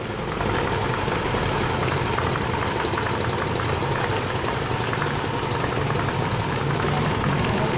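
Air compressor pump driven by a secondhand electric motor, running steadily with a constant mechanical hum.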